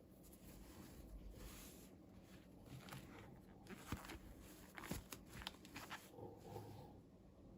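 Faint rustling as small plastic toy pieces and packaging are handled, with several sharp clicks in the second half.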